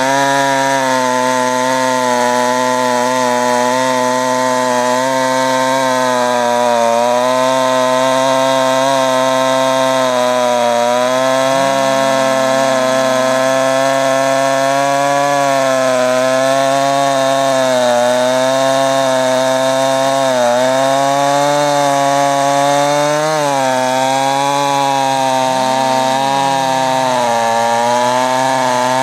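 Stihl 028 two-stroke chainsaw with a 28-inch bar running under load, its chain cutting steadily through a large log. The engine pitch sags briefly and recovers a few times as the cut loads it.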